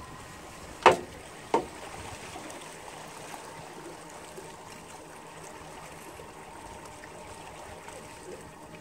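Steady wash of moving water around a small boat on a river. Two sharp knocks about a second in, half a second apart, the first one loud.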